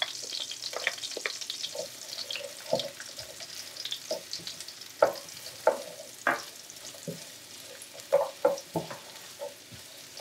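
Sliced onions sizzling in melted butter in a frying pan, being sautéed and stirred with a wooden spatula that knocks against the pan now and then, most often around the middle and near the end.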